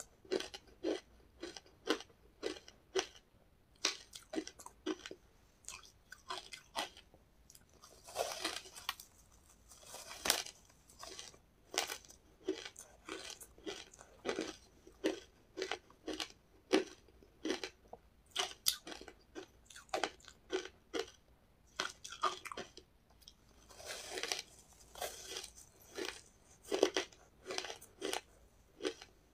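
Shaved ice and ice chunks coated in milk powder being bitten and chewed, a steady run of crisp crunches about two a second, with a few longer gritty bites.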